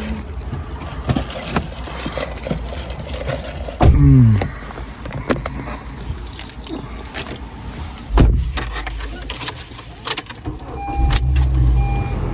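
Car cabin road noise while driving: a steady low rumble from the engine and tyres, with a short loud sound of falling pitch about four seconds in and a heavy low thump about eight seconds in.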